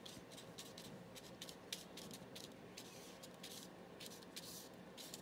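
Faint paintbrush strokes and dabs on paper: quick, irregular scratchy brushing, a stroke or two every half second or so.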